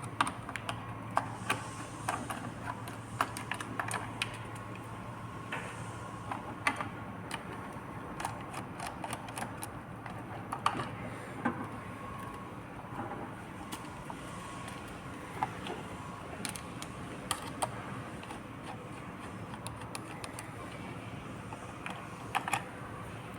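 Scattered, irregular sharp clicks and light ticks of a screwdriver and small metal parts as the display panel's four mounting screws are taken out, over a faint steady hum.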